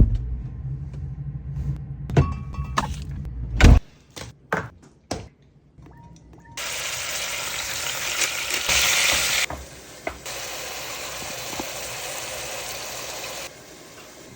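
Beef frying in hot oil in a pot: a steady sizzle that starts about six and a half seconds in and jumps in level a few times. Before it come a low hum and several separate knocks.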